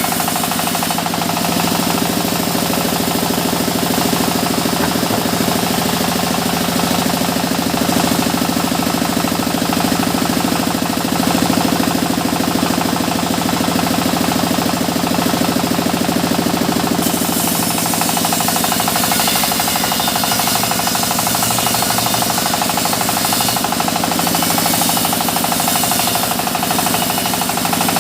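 Engine-driven sawmill saw running steadily, with the fast even knocking pulse of its engine under the saw's noise. The high, hissy part of the sound shifts about two-thirds of the way through.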